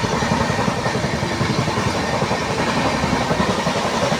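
Indian Railways passenger train running at speed, heard from inside the coach at a barred window: a steady, dense rumble of wheels on rails with the coach rattling.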